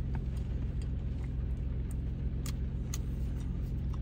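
Steady low hum of a car engine idling, heard from inside the cabin, with a few faint clicks about two and a half to three seconds in.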